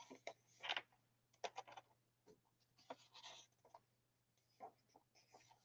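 Faint paper rustling and brushing as the pages of a handmade hardback journal are turned and smoothed by hand: several short, scattered rustles, the clearest in the first second and a half.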